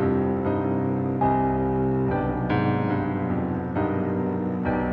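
Piano music: held chords, a new one struck about every second.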